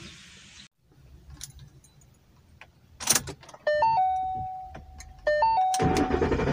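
Keys jangling as the key goes into the ignition of a 2013 Ford Mustang, followed twice by the dashboard's stepped electronic warning chime. About a second before the end, the starter begins cranking with a low rumble as the engine is being started.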